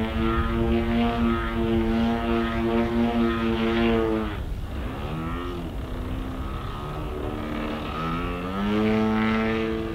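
Desert Aircraft DA-50 two-stroke gas engine of a large-scale RC aerobatic plane, running at high throttle. About four seconds in it is throttled back and its pitch dips and wavers. Near the end it climbs back to a strong steady note.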